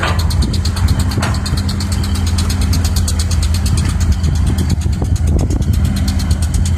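Heavy diesel engines of a Caterpillar 320 excavator at work and a dump truck waiting beside it, running steadily with a deep hum and a fast, even clatter.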